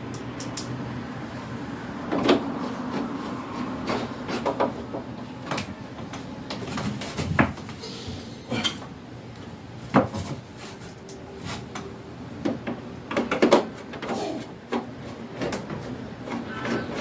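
Irregular clicks and knocks of parts of a window air conditioner being handled and fitted back together, with a low hum underneath.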